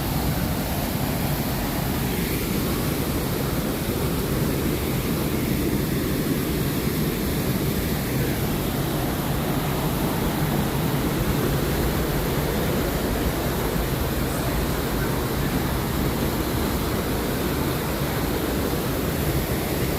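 Waterfall's rushing water: a steady, deep, continuous roar of falling water.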